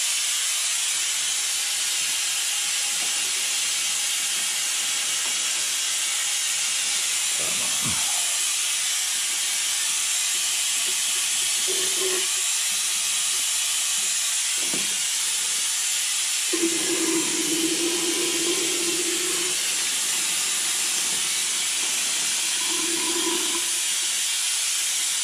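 Steady, loud hiss of rushing air while coolant is drawn out of the Jeep's radiator through a clear suction tube. A short low hum rises briefly a few times, longest about two-thirds of the way in.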